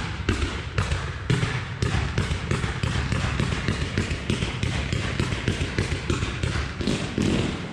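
Consumer (F2) firework batteries firing a rapid, unbroken run of shots, several a second, as comets and stars are launched one after another.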